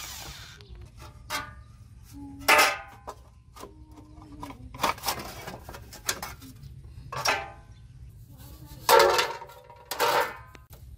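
Intermittent clanks and clatters of metal and plastic motorcycle parts being handled and set down, several with a short metallic ring; the loudest come about two and a half seconds in and near the end.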